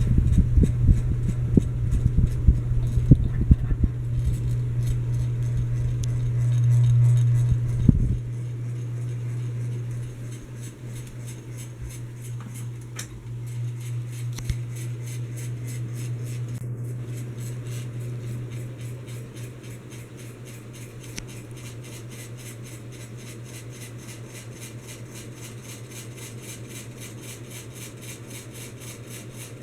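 Hampton Bay Landmark Plus ceiling fan running with a steady electrical motor hum. Irregular knocking for the first eight seconds stops suddenly, then the humming carries on and gets quieter in steps.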